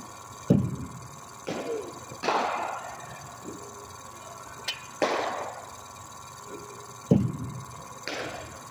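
Cricket bowling machine in use: two sharp thuds, about half a second in and again about seven seconds in, with several short swishing noises between them, over a steady machine hum.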